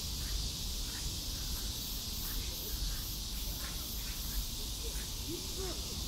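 Steady high-pitched insect chorus of summer, over a low rumble, with faint distant voices near the end.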